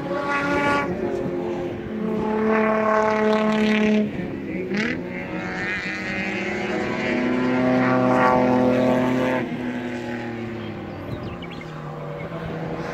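Race cars' engines running hard as several cars pass one after another on a road course. Each engine note holds a steady pitch for a second or two before shifting. The loudest pass, about six to nine and a half seconds in, cuts off suddenly, and a lower, quieter engine follows.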